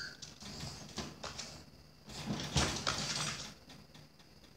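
Small dog scrabbling inside a wire exercise pen: scratching and rattling in two bouts of about a second each, as it paws at the pen to climb out.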